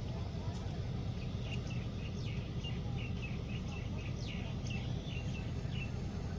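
Steady low rumble of a railway breakdown crane's engine running, with a bird chirping over it in a quick run of short, high, falling chirps that stops shortly before the end.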